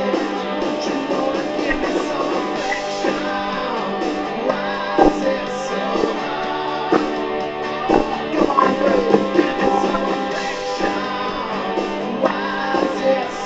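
Rock music with guitars playing.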